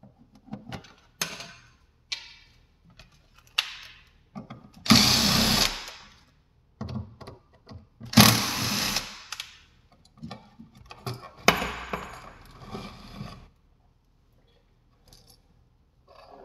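Clicks and scraping of a screwdriver and a plastic outlet cover plate coming off, then a cordless driver running in two short bursts, backing out the receptacle's mounting screws. After that, the metal receptacle rattles and clicks as it is pulled from the box.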